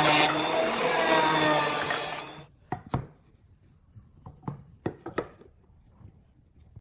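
An electric power tool runs with a steady motor whine and stops abruptly about two seconds in. A few sharp knocks and clicks follow.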